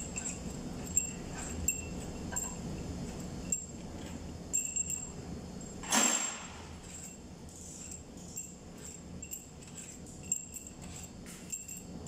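Small steel engine parts clinking as they are handled on a forklift engine's cylinder head, light ringing ticks every second or so. About halfway through comes one louder clank as a part goes into a pan beside the head.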